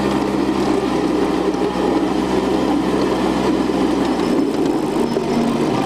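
Ride-on miniature railway train running along a ground-level track: a steady rumble of wheels on rail, with a low steady hum that cuts out about four seconds in.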